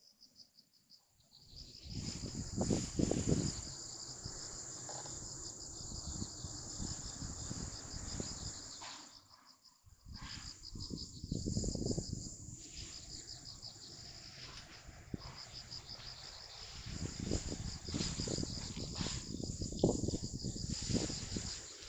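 Crickets chirping steadily in a high, fast-pulsing chorus. Three long swells of low rumbling noise come and go over it, louder than the insects.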